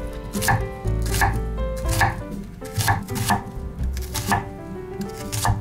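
Kitchen knife chopping vegetables on a cutting board, about seven separate strokes at an uneven pace.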